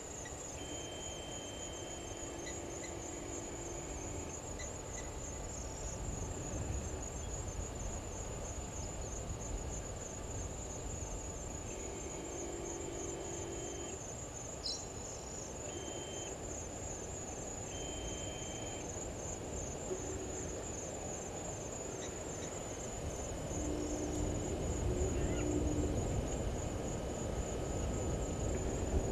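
Crickets trilling in a steady, high-pitched pulsing chorus, over a low rumbling background noise.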